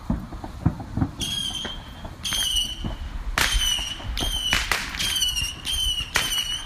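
Fireworks going off: a few sharp pops, then from about a second in a quick run of whistling fireworks, each one a sharp crack and a short whistle falling in pitch, one every half second or so.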